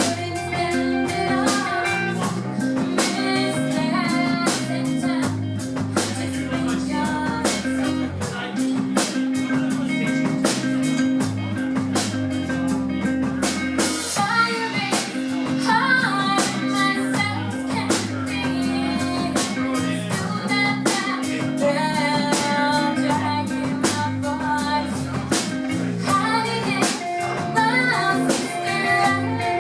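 Band music: a singer over guitar, bass and a drum kit keeping a steady beat.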